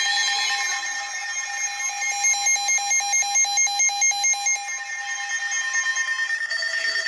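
Emergency Alert System alarm for a winter storm warning, sounding through a speaker: a steady shrill two-tone alarm with a fast pulsing beep over it in the middle, changing to a different tone near the end.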